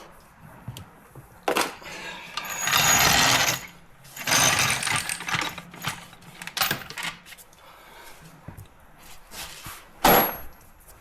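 Tools and metal parts being worked on a car's rear suspension during a shock absorber swap. A sharp clank, then two rattling bursts about a second long and scattered clicks, with another loud clank near the end.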